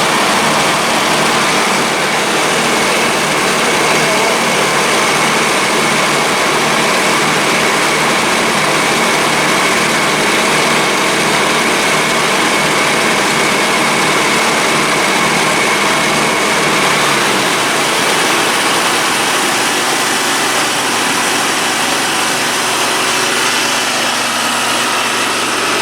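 Dixon 72-inch zero-turn mower engine running steadily, with a steady high whine that fades out about two-thirds of the way through.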